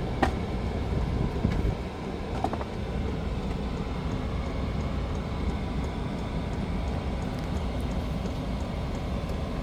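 Hcalory portable diesel heater running: a steady low rumble from its burner and combustion fan, with a few light knocks in the first couple of seconds.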